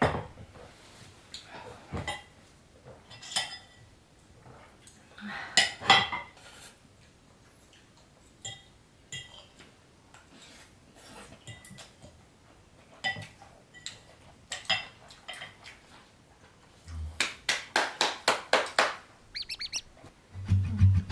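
Glassware and metal utensils clinking and knocking as tableware is handled, in scattered strikes with a quick run of taps near the end. Music comes in during the last second.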